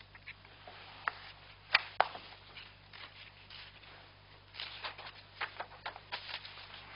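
Quiet room tone with a low steady hum, broken by a few sharp clicks about one to two seconds in and a scatter of faint clicks and rustles later on.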